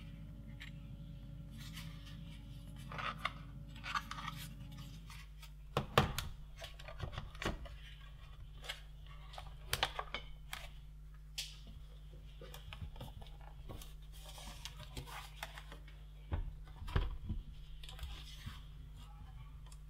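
Hands handling a plastic laptop battery pack and the laptop's case: scattered clicks, rustles and knocks as the battery is pressed into its bay and the laptop is turned over.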